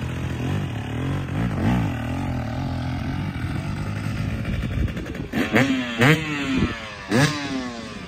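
Dirt bike engine running at low, wavering revs as the bike pulls away. About five seconds in it revs up hard, the pitch climbing and dropping three times as it accelerates.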